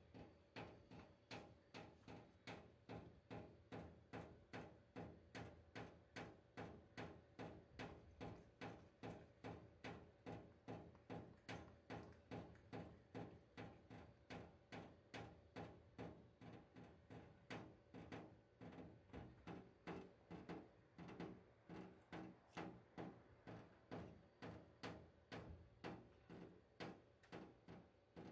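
Faint, very even drips of water from a kitchen tap falling into a stainless-steel sink, about two drips a second.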